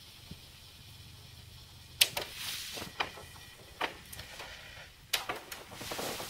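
The VHS deck of a Sony SLV-D350P DVD/VCR combo: a steady low hum while it runs, then about two seconds in a sharp click, followed by several more clicks and clunks from its tape mechanism as the deck goes to stop.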